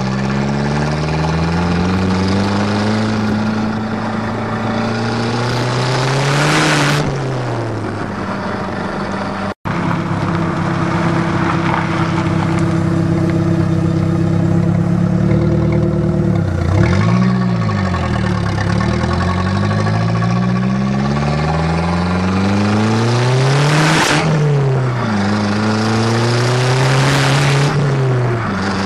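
Exhaust of a turbocharged Shelby Z–engined Dodge Aries under way on the highway, heard from beneath the rear bumper; the engine note climbs and falls several times as it accelerates and eases off. The sound cuts out for a split second about ten seconds in.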